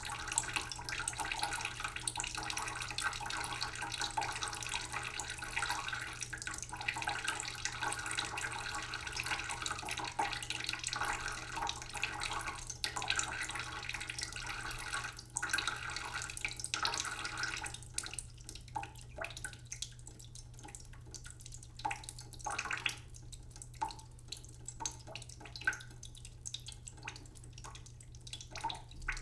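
Tap water running slowly into a cooking pot in a sink, a steady splashing stream. About two-thirds of the way through, the flow thins to a quieter trickle of separate drips.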